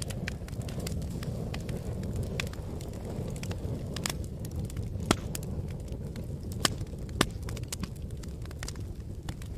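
Wood fire burning in a fireplace: a steady low rumble of flames with constant sharp crackles and pops from the burning logs. A few louder pops stand out, one about halfway through and two more a couple of seconds later.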